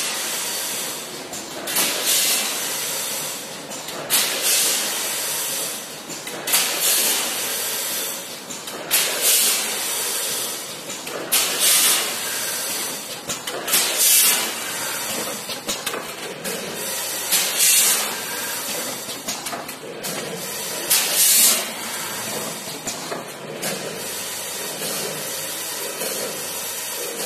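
Vertical automatic coffee bean packing machine running: a steady mechanical hiss and rattle from the vibratory bean feeder, broken by a loud rushing burst every two to three seconds as each pouch cycles. The bursts thin out near the end, leaving the steady running.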